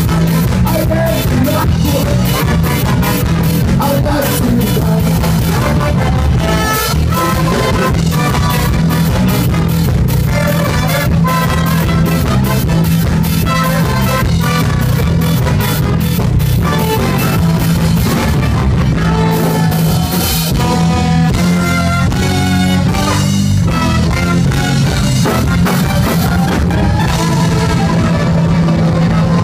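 A live band with trumpet, trombone, saxophone, tuba and electric guitar playing a loud, upbeat number, the tuba carrying a strong bass line under a steady beat.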